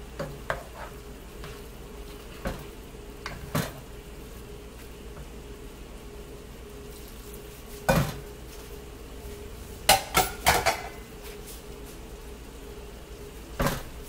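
A cooking spoon knocking and scraping against the sides of a nonstick pot while sausage slices, peppers and onions are stirred in wine, in scattered clinks with a loud cluster about ten seconds in. A faint sizzle from the pot runs underneath.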